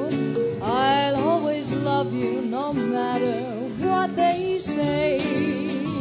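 Small swing band playing live: a lead melody swoops up and wavers over a steady accompaniment of guitar, bass and drums.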